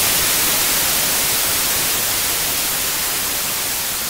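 Loud, even static hiss like white noise, strongest in the high frequencies, slowly fading.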